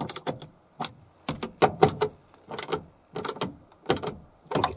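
Socket ratchet wrench clicking in short runs as a bolt is turned, with metal clinks of the tool against the door's inner steel panel.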